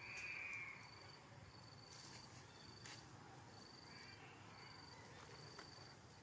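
Faint insect chirping: a short, high chirp repeating evenly, a little more than once a second. A brief high squeak right at the start is the loudest sound, with a few faint clicks.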